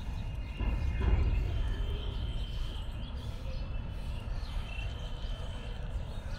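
Outdoor ambience of a busy street market: a steady low rumble with faint, thin, high whistle-like tones, swelling louder about a second in.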